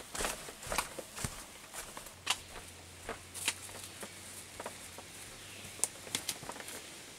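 A hiker's footsteps on a trail: uneven crunching and scuffing footfalls, about two a second at first and sparser later.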